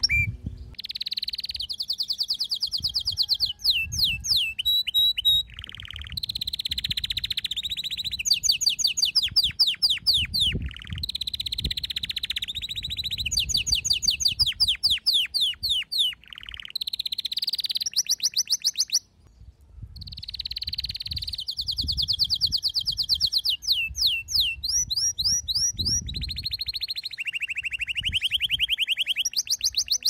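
Domestic canary singing: fast trills and rolling runs of rapidly repeated high notes, in phrases of a few seconds with short pauses, and a brief break about two-thirds of the way through.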